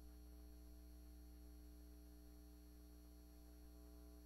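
Near silence: a steady low electrical hum, with faint steady higher tones above it.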